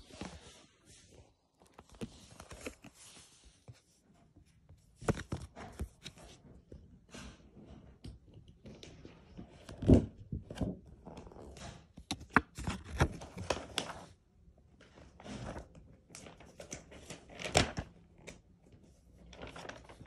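Paper stickers being shuffled and flicked through by hand: scattered rustles, paper flicks and soft thumps with short pauses between them.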